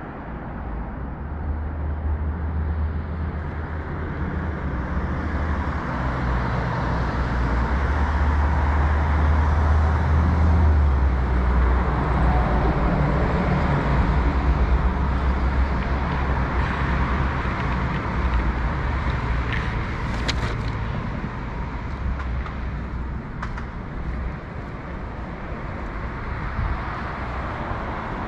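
Road traffic going by, with a heavy vehicle's low engine drone that grows louder in the middle and fades again. A few short clicks come near the end.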